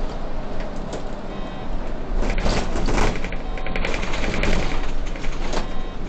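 Solaris city bus on the move, heard from the driver's cab: a steady engine and road drone, with a rapid rattling clatter from about two seconds in until near the end.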